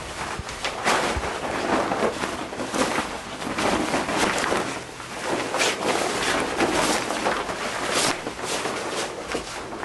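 Scuffle between two men: clothing rustling and bodies knocking against each other as one grapples with the other. The noise swells and fades in waves, with sharp bumps throughout.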